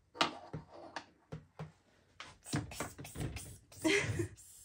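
Small wooden toy pieces clicking and knocking as a toddler handles a toy vanity set and toy tractor: a scatter of light taps, growing busier in the second half.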